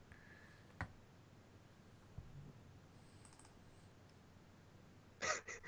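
Very quiet room tone with a single sharp click about a second in. Near the end come a few short noisy sounds.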